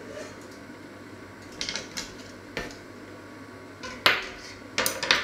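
Cutlery clinking as a spoon and knife are handled, then a large stainless steel pot set down on a wooden cutting board with a loud metallic clank about four seconds in, followed by a few more knocks near the end.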